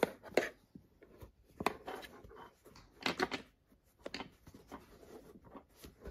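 Hands handling yarn and a crochet bag: irregular rustling, pulling and light clicks as the yarn tail is worked to tie off.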